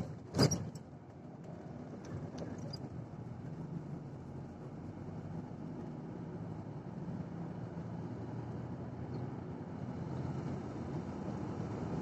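Car driving, heard from inside the cabin: a steady hum of engine and tyre noise that grows gradually louder towards the end. There is a sharp knock or rattle about half a second in.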